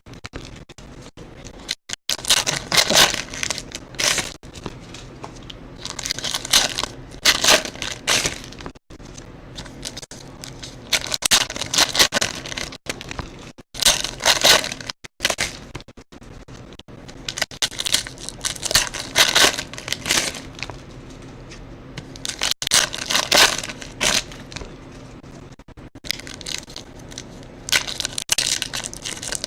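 Trading card pack wrappers being torn open and crumpled, with cards handled between, in short crinkling bursts every few seconds.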